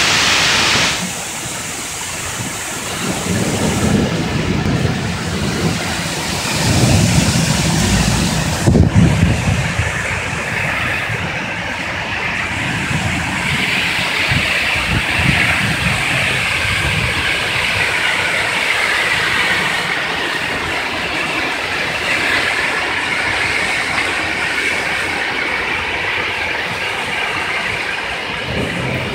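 Heavy rain pouring down in a summer storm, a steady loud hiss of rain on roofs and trees. Low rumbling swells through the first ten seconds and is loudest about nine seconds in.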